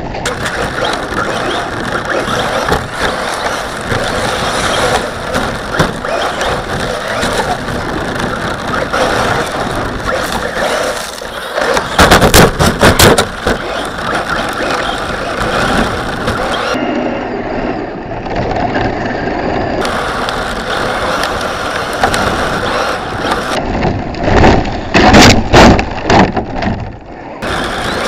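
RC car driving on packed snow, recorded by a camera mounted on the car: a steady rumble and rattle from the drivetrain, tyres and body, with loud knocks and clatter about halfway through and again near the end as the car bounces and hits the snow.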